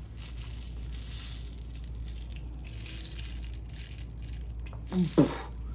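Faint rattling and scraping of steel BBs being loaded into the magazine of a SIG P365 CO2 BB pistol, until it is full. A short vocal sound comes about five seconds in.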